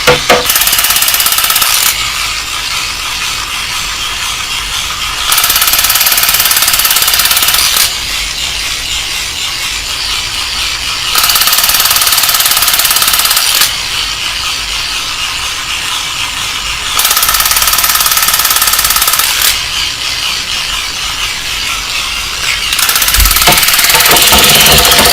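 Harsh, rattling mechanical noise from a toy vehicle, alternating four times between louder stretches of about two and a half seconds and quieter stretches.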